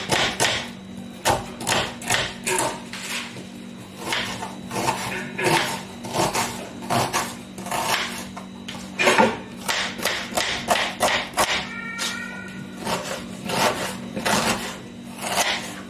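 Knife chopping red onion on a cutting board: quick, uneven strikes, several a second, with brief pauses between runs.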